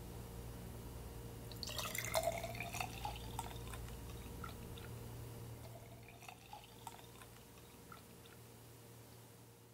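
Green lemonade poured from a glass measuring jug into a glass jar with ice, the pouring sound rising in pitch as the jar fills, with small clicks along the way. A second, weaker pour rises again about six seconds in.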